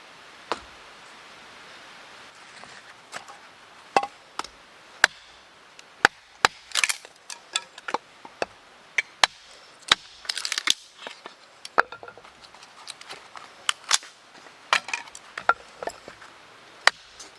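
Repeated sharp strikes on wood, splitting firewood: single knocks at irregular intervals, with a couple of quick flurries of blows.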